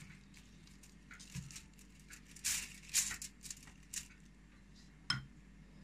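A silicone pastry brush dabbing oil onto a potato lying on aluminium foil, the foil giving short crinkly rustles, a cluster of them in the middle, with a couple of light knocks.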